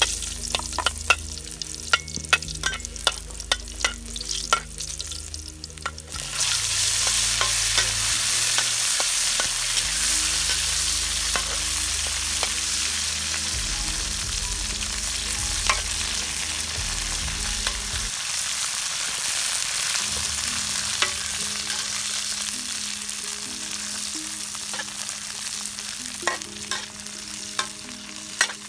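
Metal wok spatula clinking and scraping against a wok while food fries in shallow oil. About six seconds in, a loud sizzle starts suddenly as vegetables hit the hot oil, and it continues as they are stir-fried, with occasional scrapes of the spatula.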